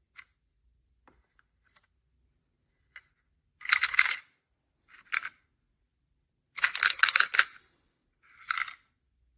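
Four short bursts of clicking and rattling as small hard objects are handled, the loudest about four and seven seconds in.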